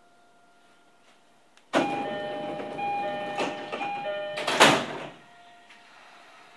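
Passenger doors of a JR East E231-series commuter train sliding, with the repeating electronic door chime sounding over the rush of the door motion. The chime and sliding start abruptly about two seconds in and end in a loud thump a few seconds later as the doors reach their stop.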